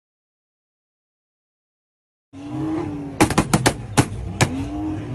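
Silence for the first two seconds, then a rapid, irregular series of sharp bangs over a steady noisy background with a tone that rises and falls about every second and a half.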